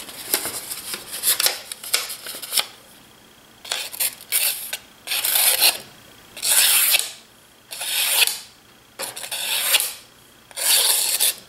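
Freshly sharpened hunting knife slicing through a thin paper sticky note, a paper test of the edge: a run of short hissing slices, about one a second, with crinkly paper noise at the start.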